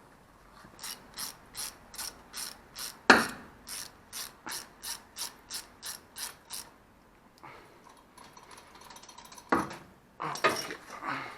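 Hand ratchet wrench clicking in quick, even strokes, about three a second, as a bolt is worked loose. It stops near the end, followed by a few louder metal knocks.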